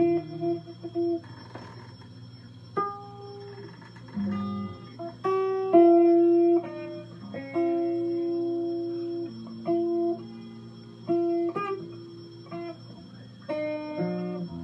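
Electric guitar playing a slow melody of single plucked notes, several held and left ringing for a second or more, with a few chords near the start and near the end.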